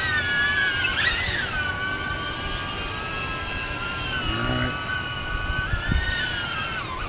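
DJI Avata FPV drone's ducted propellers whining steadily, the pitch stepping up and down as the throttle changes: a brief rise about a second in, and a dip near the end.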